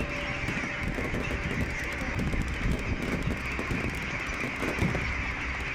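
A large flock of birds calling at once, many overlapping calls forming a dense, continuous din.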